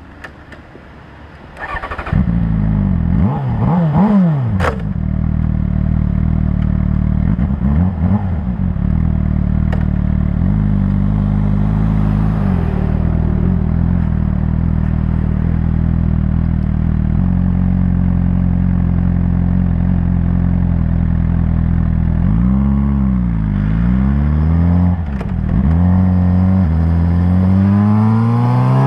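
Suzuki GSR 600's inline-four engine comes in loudly about two seconds in, is blipped up several times, idles steadily, then revs up in a long rise near the end. The owner reports a rattle whenever the throttle is opened.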